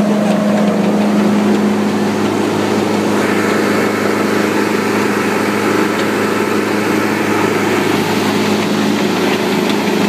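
Dynamic CH465 wood chipper running steadily with its infeed empty: an even engine hum with a strong low tone and no chipping.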